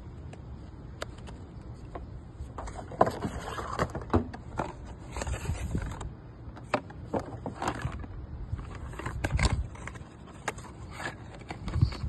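Cardboard packaging being handled and opened by hand: irregular scrapes, taps and rustles, with louder bursts about three seconds in and again near nine seconds.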